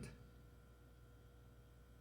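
Near silence: a refrigerator's inverter compressor running extremely silently, only a faint steady hum with a thin steady tone above it.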